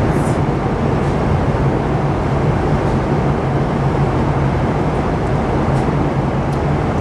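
Steady cabin noise of an airliner in flight: an even roar with a constant low hum underneath.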